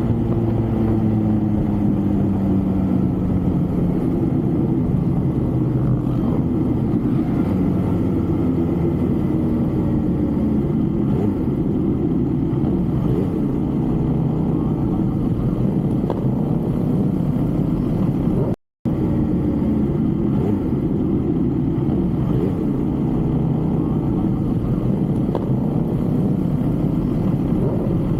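A motor vehicle's engine and road noise while riding; the engine note falls over the first few seconds as the vehicle slows, then holds a steady rumble. The sound cuts out completely for a moment about two-thirds of the way through.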